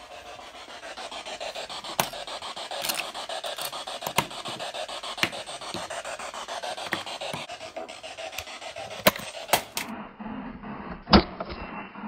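Rapid scratchy rasping of a tight screw thread as a light fitting is twisted back on, with a few sharp clicks along the way and a louder knock near the end.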